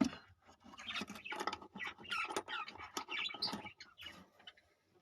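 Lovebirds chirping in short bursts amid irregular scratching and rustling.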